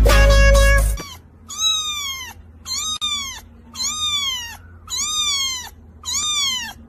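Young orange kitten meowing five times in a row, each a high mew that rises and then falls, about a second apart. Music plays for the first second before the mews start.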